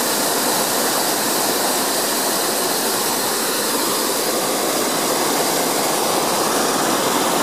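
Hot-air balloon's propane burner firing in one long, unbroken blast: a loud, steady rushing hiss.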